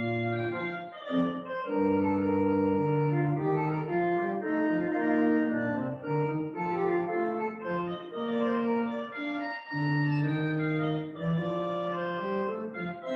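Pipe organ playing a piece of held chords with moving lines above and below, with short breaks between phrases about a second in and again near ten seconds.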